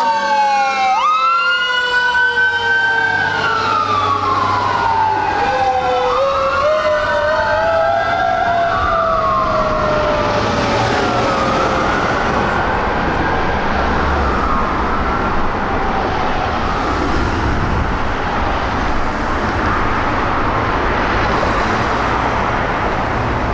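Fire apparatus sirens, a 2018 Spartan Gladiator fire engine's and a 2007 Ford F-550 brush truck's, wailing up and down and overlapping one another. After about twelve seconds the wails grow less distinct under steady traffic and truck engine noise.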